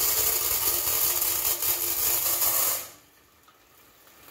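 Dry popcorn kernels poured from a glass bowl into a metal pot: a dense, loud rattling shower of kernels on the pot that stops about three seconds in.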